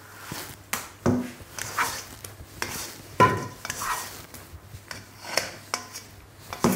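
Plastic dough scraper scraping sticky bread dough out of a stainless steel mixing bowl: a run of short scrapes and knocks. A knock about three seconds in sets the bowl ringing briefly.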